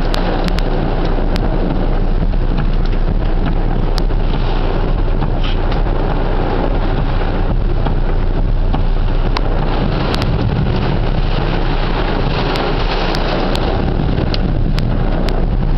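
Heavy rain pouring down on a car, heard from inside the cabin as a loud, steady roar, with scattered sharp ticks of drops striking the roof and glass.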